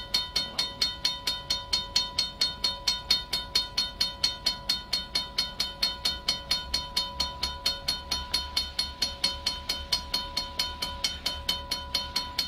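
Railroad crossing signal bell ringing steadily in quick, even dings, about four a second, warning of the approaching train. A low rumble from the slow-moving locomotive grows about halfway through.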